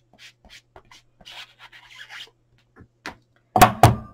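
A rubber stamp on a clear acrylic block being wiped clean of ink, a run of short scratchy rubbing strokes, followed near the end by two sharp knocks a quarter-second apart.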